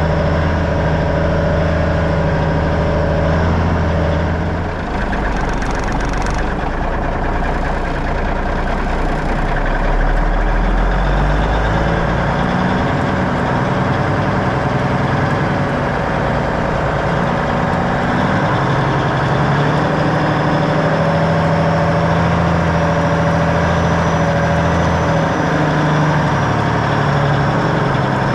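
1984 Freightliner cab-over's Cummins diesel engine running as the truck moves slowly, its pitch shifting as the revs change. A short hiss comes about five seconds in.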